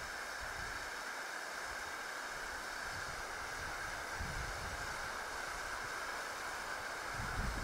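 An expired, decades-old red pyrotechnic distress hand flare burning with a steady hiss, held at arm's length. It is still burning despite its age.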